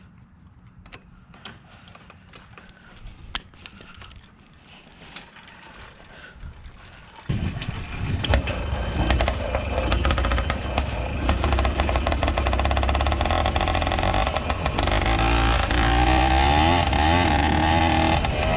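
Zeda80 80cc two-stroke motorized-bicycle engine starting cold: faint clicking, then the engine suddenly catches about seven seconds in and keeps running, revving up and down.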